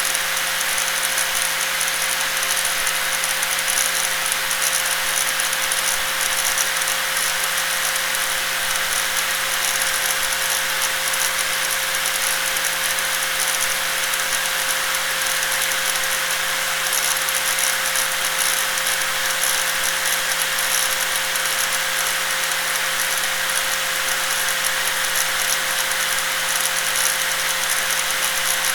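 Electric angle grinder running continuously at steady speed: an unchanging whine with a buzzing rattle over it.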